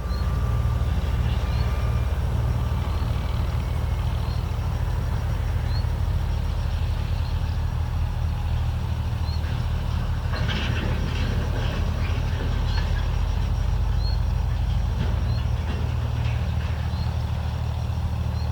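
A heavy engine running steadily with a low rumble. A faint high chirp repeats about every second and a half, and there is a brief clatter about ten seconds in.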